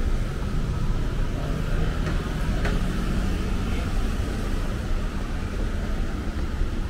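City street noise: a steady low rumble of road traffic, with one sharp click about two and a half seconds in.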